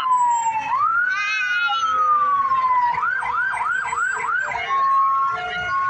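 Electronic emergency-vehicle siren: a slow wail falling in pitch, then a rapid yelp of about three cycles a second, switching to a steady held tone and a rising wail near the end.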